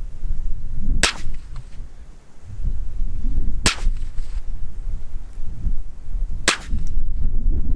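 Three .22 LR rifle shots from a Ruger 10/22 Target, each a sharp crack, about two and a half seconds apart: shots of a velocity string fired over a chronograph.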